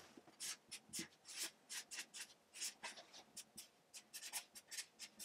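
Marker pen writing on flipchart paper: a faint run of short, quick strokes.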